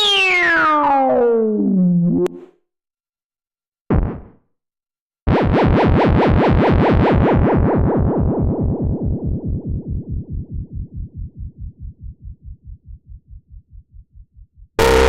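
Hardware synthesizer FX samples in sequence: a falling pitch sweep with several overtones gliding down together for about two seconds, a short blip, then a rapidly pulsing tone that slowly fades out. A new, denser sound starts right at the end.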